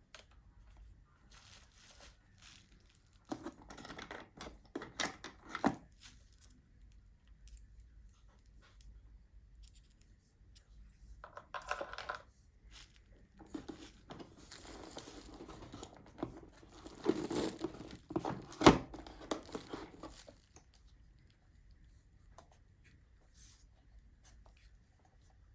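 Drone packaging being torn open and handled by hand: three stretches of tearing and crinkling, the longest in the second half, with one sharp click in the middle of it.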